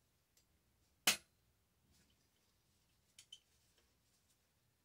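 A hammer tapping a punch to drive out a trigger-group pin on a Remington 870 shotgun: one sharp tap about a second in that rings briefly, then two lighter clicks a little after three seconds in.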